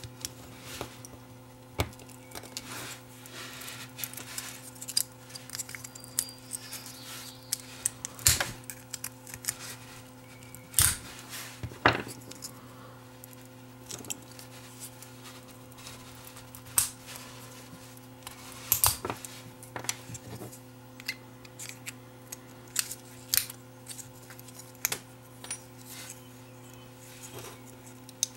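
Small screwdriver prying, clicking and scraping at the thin metal shield can on a circuit board as the shield is worked off, in irregular sharp metallic clicks and scratches.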